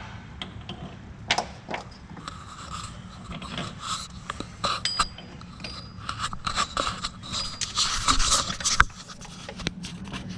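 Irregular metal scraping, clinking and knocking as an engine is shifted and worked into position during an engine install, getting busier in the second half with one sharp knock near the end.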